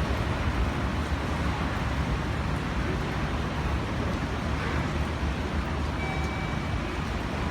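Rain falling steadily: a continuous, even hiss over a low rumble.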